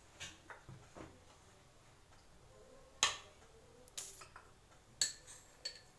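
A handful of sharp, separate clicks and ticks from coriander seeds dry-roasting in a nonstick kadai, the loudest about three seconds in.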